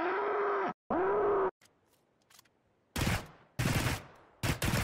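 Two short pitched tones, then four sharp bangs like gunshots starting about three seconds in, each with a short decay.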